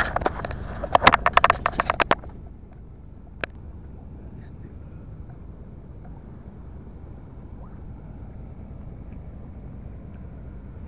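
A quick run of sharp clicks and rattles for about the first two seconds as the landed barracuda, held in a metal lip grip, is handled on concrete. After that comes a steady low rumble, with one more click about three and a half seconds in.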